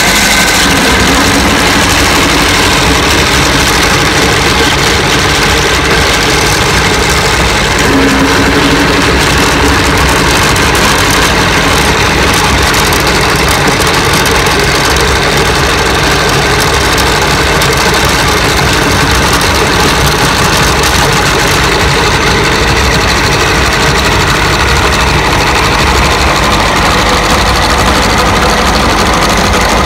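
Belt-driven cast-iron meat grinder running steadily under load as raw meat is forced through its cutting plate.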